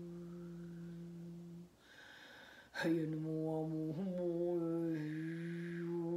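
A woman's voice humming a long, steady low note as chant-like toning. It breaks off about 1.7 s in for a breath, then slides down into the note again about a second later and goes on with a wavering pitch.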